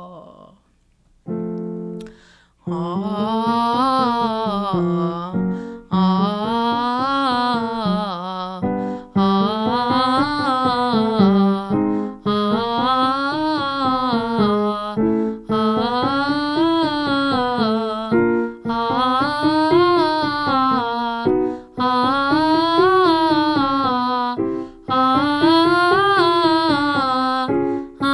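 Warmup exercise: a woman's voice sings a wordless up-and-down scale pattern over piano, repeated about eight times, each time a little higher.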